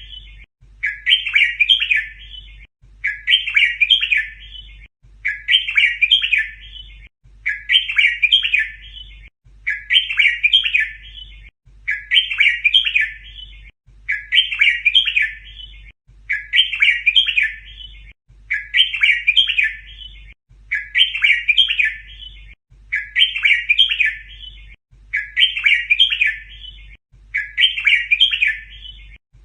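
Red-whiskered bulbul singing a short, bubbling phrase over and over, the same phrase about every two seconds, like a looped song recording.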